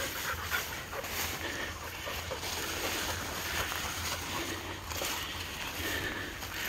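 Steady low wind rumble on the microphone, with grass rustling and swishing underfoot as the person filming walks through tall grass.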